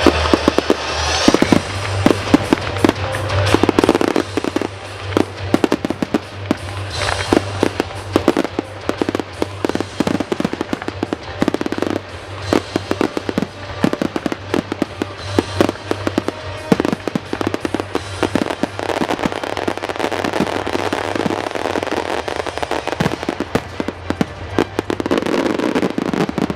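Professional display fireworks going off in rapid succession, dense sharp bangs and crackles throughout, over music with a steady bass.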